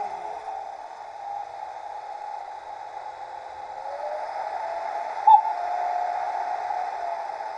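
Model locomotive sound decoder playing an E 95 electric locomotive sound through a small speaker in a 3D-printed sound box: a steady running hiss with motor-whine tones that glide in pitch, one rising about four seconds in. A brief loud blip comes a little after five seconds.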